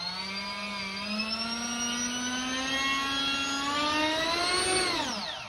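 Brushless RC ducted-fan motor spinning an Audi A4 turbocharger's inlet (compressor) wheel inside a 3D-printed housing. It gives a high whine with many overtones that climbs steadily in pitch as the throttle is eased up, then drops away quickly near the end as it is throttled back.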